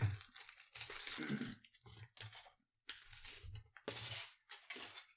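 Wrapping on a baby food pouch being torn and crinkled off, in about five short rustling bursts.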